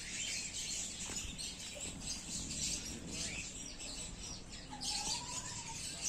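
Many small birds chirping continuously in the background, with a short wavering note about five seconds in.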